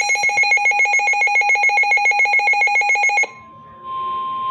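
Electronic emergency-alert tone: a loud, rapidly pulsing multi-pitched alarm at about ten beeps a second. About three seconds in it cuts off and a single steady tone begins.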